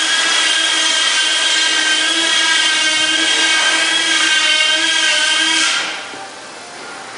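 A power tool running with a steady whine, then cutting out about six seconds in.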